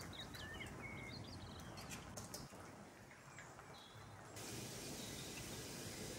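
Tomato sauce and eggs simmering in a frying pan, a faint low sizzle, with a few sharp clicks about two seconds in as an eggshell is cracked over the pan. After about four seconds the sizzle becomes a steadier, brighter hiss.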